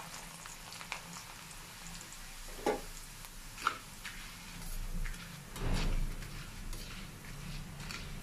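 Flattened rice (chira) deep-frying in hot oil with a steady soft sizzle. A few sharp clicks come in the first few seconds. Louder scraping and stirring from a metal spatula in the wire frying basket follows around five to six seconds in.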